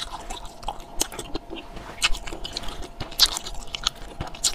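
Close-up chewing of a soft candy: irregular wet mouth clicks and smacks as it is bitten and worked in the mouth.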